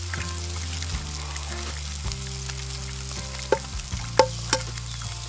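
Meat and mushrooms sizzling as they fry in a pan over a campfire, under background music. About three and a half to four and a half seconds in come three sharp taps with a short ring: an egg being cracked on the pan's rim.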